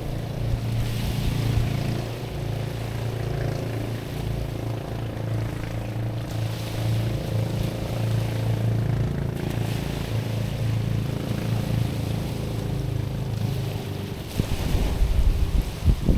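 Steady low drone of a boat engine running offshore, with waves washing over stones in slow surges. Wind buffets the microphone near the end.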